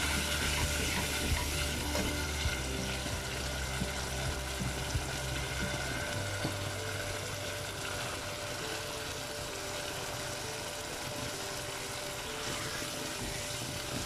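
Tomato-onion masala sizzling and frying in a non-stick pan, with a plastic slotted spatula stirring and scraping. Sliced ridge gourd goes into the pan partway through, and the frying and stirring carry on.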